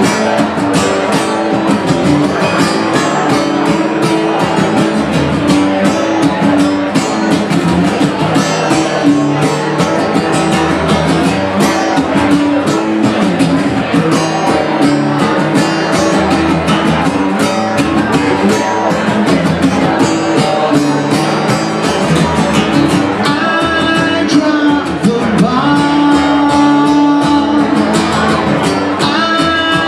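Acoustic guitar played solo and continuously at a steady tempo: the instrumental introduction of a song, with no singing yet.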